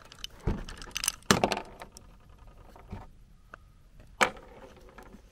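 AR-pattern 300 Blackout rifle being cleared by hand after a failure to feed: a handful of sharp metallic clacks and clinks of the charging handle and bolt, with a loose round coming out onto the table, the loudest clack about a second in and another near four seconds.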